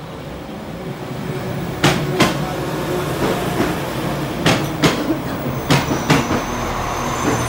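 A West Midlands Railway Class 196 diesel multiple unit drawing into a platform at low speed, its underfloor engine humming as the cars pass close by. The wheels click over rail joints in pairs, three pairs in all, and a thin high squeal comes in near the end.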